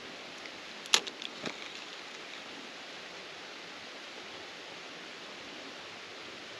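Steady rush of flowing creek water, with a sharp click about a second in and two fainter clicks just after.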